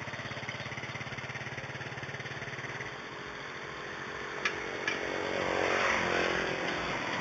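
Small motorcycle engine running at idle with a quick, even pulse, then swelling louder from about four seconds in as it revs or passes close by. Two light metallic ticks come just before the swell.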